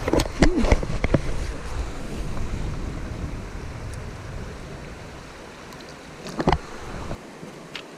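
Wind rumbling on the microphone over running creek water, fading and dropping away near the end, with a few short handling knocks, the sharpest a little after six seconds in.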